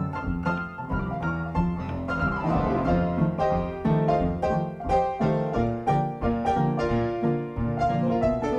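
Piano music: a steady run of notes, a few a second.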